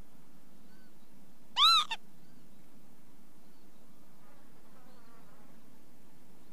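Northern lapwing giving one loud call about a second and a half in, a short note that rises and then falls in pitch, with a few faint similar calls at intervals over steady low background noise.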